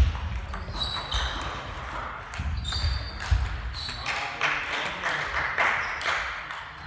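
Plastic table tennis balls clicking off bats and tables, a string of separate sharp ticks with a short high ping, some from this table and some from neighbouring tables, echoing in a large hall. A wash of hall noise and distant voices rises about four seconds in.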